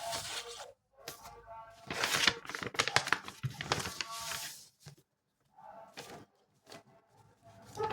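Blind-bag packaging being torn open and crinkled by hand in several bursts, the loudest about two seconds in and again from about three to four and a half seconds, over background music.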